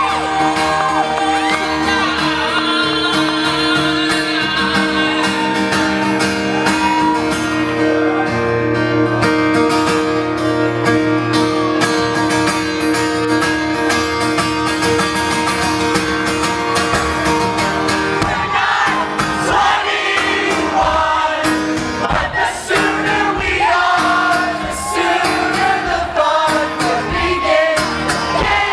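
Live acoustic guitar and singing with the audience's voices mixed in: held, ringing chords for about the first two-thirds, then fast rhythmic strumming and singing start up again.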